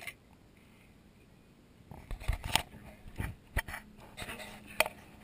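Camera handling noise: a run of knocks, clicks and scrapes from about two seconds in, as the camera is picked up and turned around.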